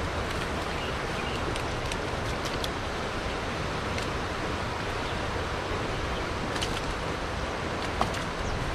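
Steady rushing outdoor noise, with a few faint light ticks as hands work fish out of a nylon cast net.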